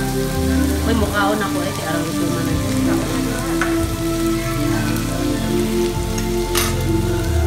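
Meat sizzling on a tabletop Korean barbecue grill plate, a steady crackle, under background music. A single sharp click comes about six and a half seconds in.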